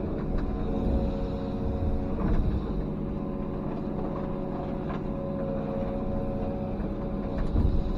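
Komatsu PC210 excavator's diesel engine running steadily under work, with a few short knocks of debris being moved.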